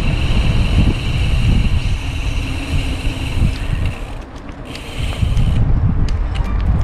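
Wind buffeting the microphone of a camera on a moving bicycle, a gusting low rumble. A steady high buzz runs alongside it, stops about four seconds in, comes back for about a second, then stops.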